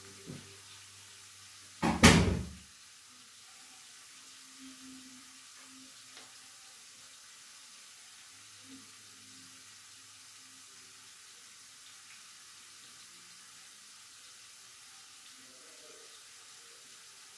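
A single loud knock about two seconds in, then a faint steady hiss from the lit gas stove with its lidded pot cooking.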